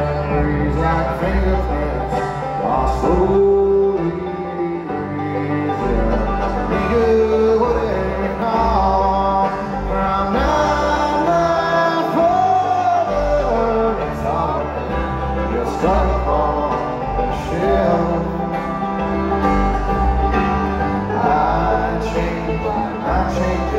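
A live bluegrass band playing a song, led by acoustic guitar over plucked strings and a bass line, with a voice singing some lines. It is heard from the audience in a large arena.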